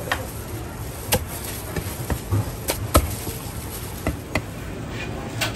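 Meat cleaver chopping poached chicken on a wooden chopping board: about nine sharp, irregularly spaced strikes, the loudest about three seconds in.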